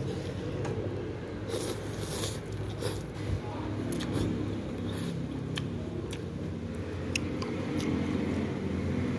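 Eating noodle soup with chopsticks: chewing and slurping, with a few short clicks of chopsticks against a ceramic bowl, over a steady low hum.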